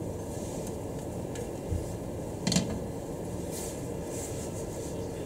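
Nylon spatula working beaten egg in a frying pan: soft scraping with a few knocks on the pan, the loudest about halfway through, over a steady low hum.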